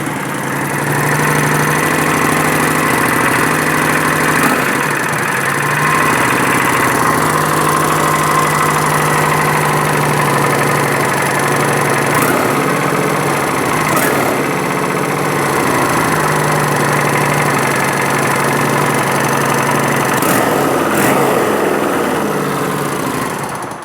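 2011 Kawasaki Vulcan 900's V-twin engine idling steadily, then switched off near the end. It carries a small noise from the rear cylinder that the mechanic suspects comes from the cam chain or its ratchet-type tensioner, and the chain is later found slack.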